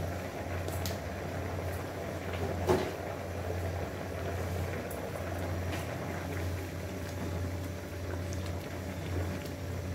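Rice pulao bubbling as it boils in a nonstick pan on a gas stove, over a steady low hum. There is a single sharp knock about three seconds in, and near the end a spatula stirs through the rice.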